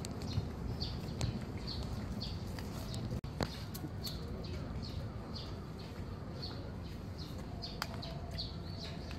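Small birds chirping, short high chirps about twice a second, over a steady low background rumble.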